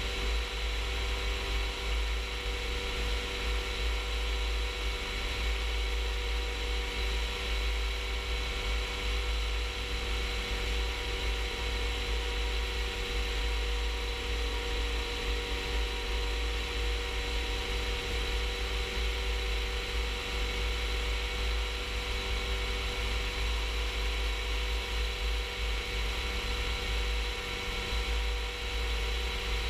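Rans S-14 light aircraft's engine and propeller running steadily in cruise flight, with wind rushing past the aircraft and buffeting the microphone in a fluttering low rumble.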